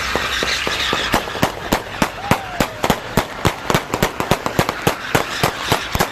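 Gunshots fired in a fast, even string, about twenty shots at three to four a second, beginning about a second in and stopping at the very end, over a steady background noise.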